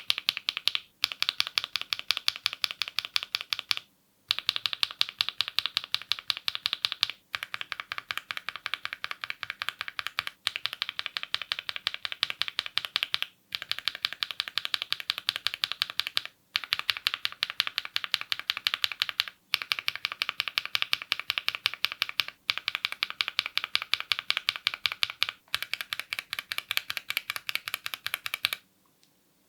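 Mechanical keyboard switches typed on fast, many keystrokes a second, in runs of about three seconds separated by brief pauses.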